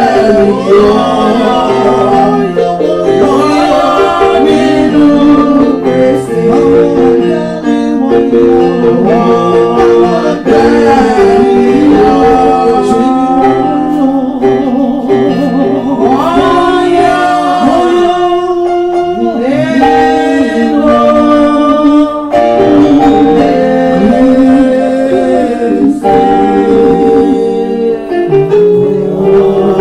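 Group of voices singing a gospel song with instrumental accompaniment.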